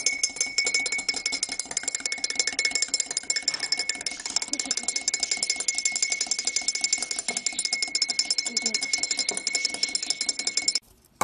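Metal spoon clinking rapidly against the inside of a ceramic mug as it is stirred: a fast, even run of clinks with a steady ring above them, cutting off suddenly near the end.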